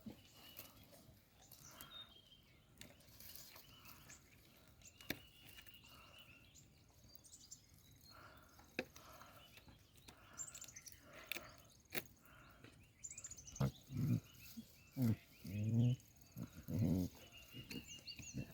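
Cane corso puppy growling: after a quiet stretch with faint bird chirps, a run of about six short, deep growls starts about two-thirds of the way through.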